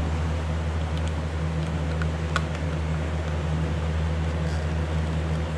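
Steady low mechanical hum, with a few faint clicks of a hand can opener being worked on a tuna can that it fails to open.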